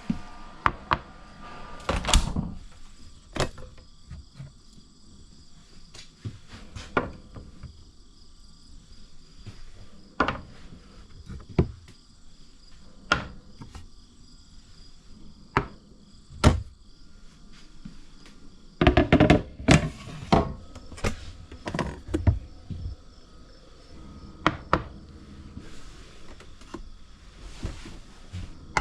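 Kitchen food-prep noises: scattered sharp knocks and clatter of utensils, cupboards and a cutting board, with a quick run of knocks about two-thirds of the way through. A faint steady high tone sits behind them.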